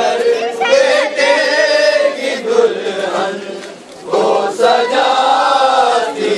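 A crowd of men and boys chanting a noha, a Shia mourning lament, together in long sung lines. The chant breaks off briefly a little before four seconds in, then the next line begins.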